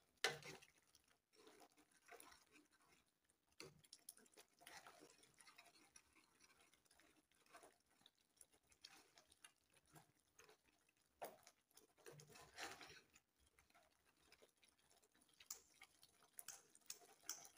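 Faint, irregular scrapes and taps of a spoon stirring thick masala gravy in a kadhai.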